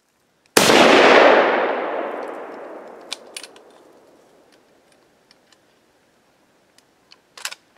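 A single hunting-rifle shot, sudden and loud about half a second in, its report rolling away over about three seconds. A few faint clicks follow, with a short rustle near the end.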